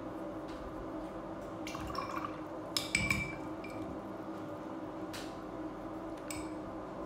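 A paintbrush being rinsed in a glass water jar, its handle tapping against the glass: a few ringing clinks about three seconds in and another near the end, over a steady low hum.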